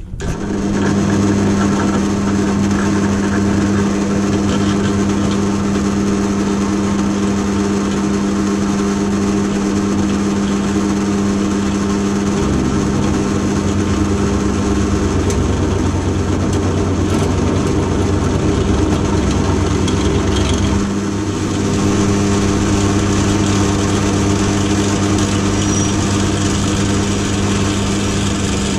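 Pillar drill motor running with a steady hum as a reamer cuts a 9 mm bore into a Zenith 30IZ carburettor body for a bronze throttle-shaft bushing. A deeper rumble comes in for several seconds in the middle, then the steady hum carries on.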